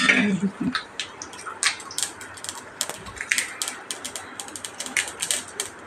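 Mustard seeds spluttering in hot oil in a kadai: a short loud burst as they go in, then scattered sharp pops that come thicker toward the end as the oil gets them popping.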